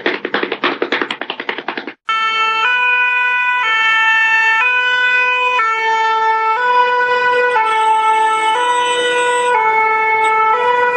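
A French two-tone fire engine siren: a clean high note and a low note, alternating about once a second, starting about two seconds in. Before it, about two seconds of fast, rattling pulses.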